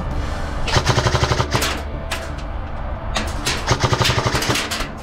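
Airsoft gun firing two full-auto bursts of rapid shots, about a second each, the first about a second in and the second about four seconds in.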